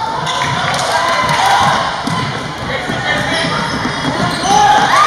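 Basketball game on a gym court: the ball bouncing and thudding amid players' and spectators' shouts, with a loud drawn-out shout rising near the end.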